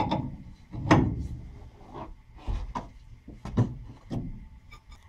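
A string of irregular knocks and clunks, about eight in all, with the loudest about a second in and again past three and a half seconds.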